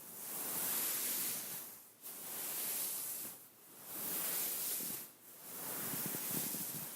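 Beaded pillow rubbed by hand, its beads shifting with a rustling hiss that swells and fades in four long strokes.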